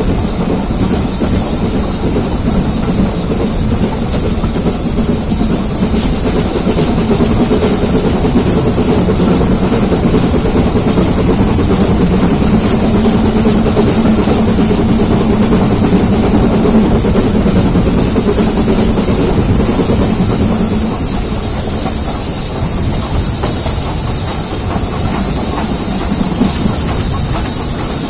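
Steam-hauled heritage train running, heard from an open carriage window: a steady rumble of wheels on rails with a constant high hiss, a little louder through the middle.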